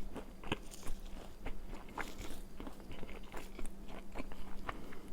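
Close-miked chewing of food, with frequent irregular wet mouth clicks and smacks.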